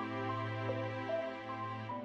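Soft background music: sustained chords under a slow melody of single notes.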